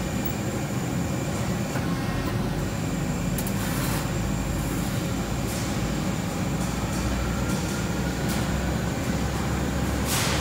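Accurpress 7608 hydraulic CNC press brake running with a steady low hum, with a few faint clicks of sheet metal being handled against the tooling.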